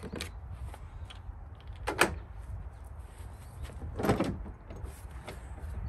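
Hands working at the plastic oil-fill access of a Predator 3500 inverter generator: a sharp click about two seconds in and a duller knock about four seconds in, over a low steady rumble.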